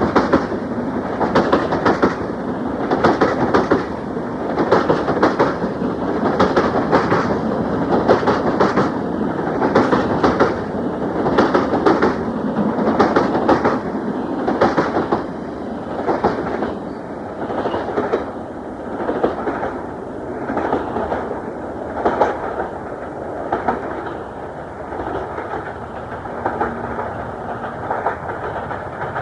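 Freightliner container train passing, its wagon wheels clattering over rail joints in a steady rhythmic clickety-clack, a little quieter in the second half.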